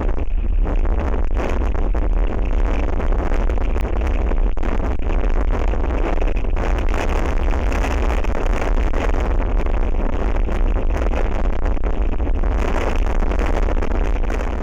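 Strong wind buffeting the microphone: a loud, steady rumble with a rushing hiss over it.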